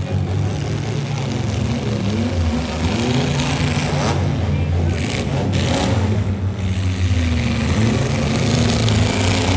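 Demolition-derby car engines running and revving up and down in the arena, a low engine drone with rising and falling pitch.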